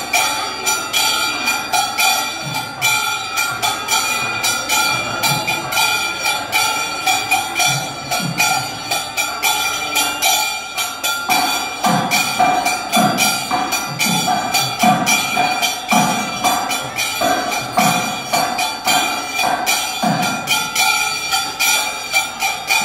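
Temple ritual music: bells ringing rapidly and continuously over a steady held tone, with drum beats about once a second in the second half.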